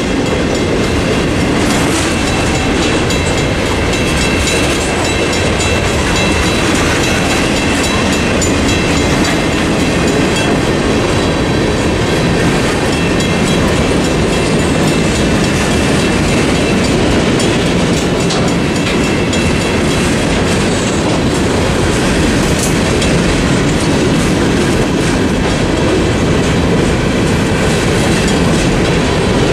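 Freight cars of a passing train rolling steadily through a level crossing, wheels clattering over the rails. A Western Cullen Hayes mechanical crossing bell is ringing along with it.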